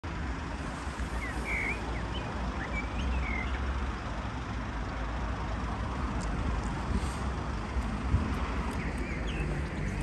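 Outdoor city-park ambience: a steady low rumble of distant road traffic, with a few brief bird chirps early on and again near the end.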